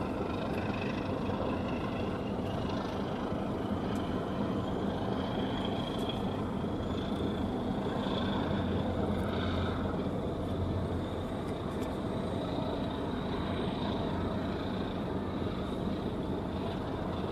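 A steady low rumble from a Japan Coast Guard patrol vessel's engines as the ship moves by, with a faint high whine that rises slightly over the first several seconds and then holds.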